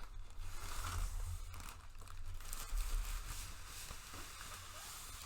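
Keyboard box and its packaging being opened by hand: irregular rustling and crinkling of packaging material, with a little tearing.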